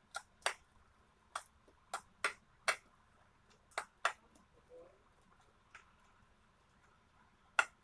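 Mixing ground lentil paste with chilli, ginger and garlic paste by hand in a bowl: about nine sharp, irregular clicks and taps against the bowl.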